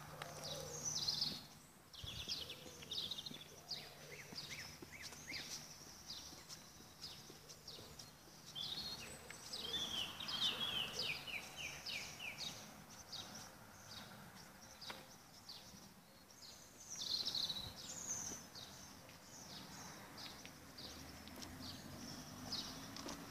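Small songbirds singing in short chirping phrases over faint outdoor background noise, with a quick run of about eight notes stepping down in pitch near the middle.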